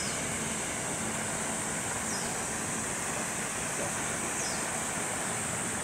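Steady rain hiss with a steady high-pitched drone over it, and three faint short falling chirps about two seconds apart.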